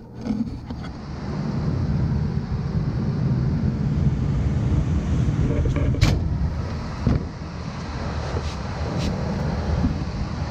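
Bryant gas furnace starting its cycle after a power reset: the draft inducer motor spins up and runs with a steady low hum, and a sharp click sounds about six seconds in. This is the furnace starting its ignition attempt while it is locked out on error 14, caused by a cracked hot-surface igniter.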